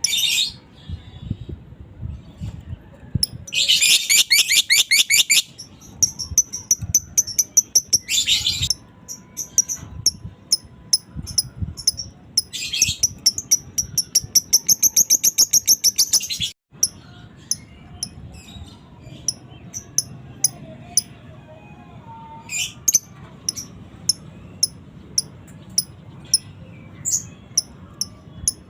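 Lovebird calling: repeated sharp high chirps, broken by long bursts of rapid rattling chatter (ngekek), the longest lasting about four seconds. After a brief break about halfway through, only scattered chirps are left.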